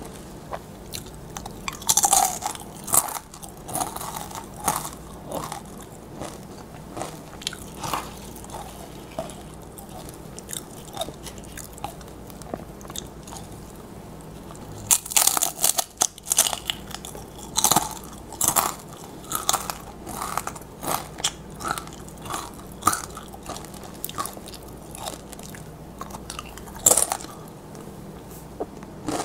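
Tortilla chips being bitten and chewed: a few loud, sharp crunches at the bites, near the start, midway and near the end, with lighter crackling chewing in between.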